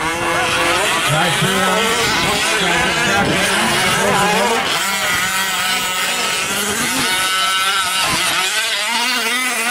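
Several 1/5-scale gas RC truck engines, small two-strokes, racing together, their revs climbing and dropping with the throttle so that the pitches overlap and warble up and down.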